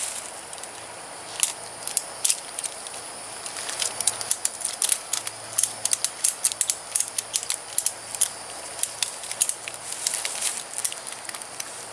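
Webbing tree strap being wrapped around a pine trunk and pulled tight by gloved hands: an irregular run of sharp clicks and scratches of strap and gloves on rough bark, thicker in the second half.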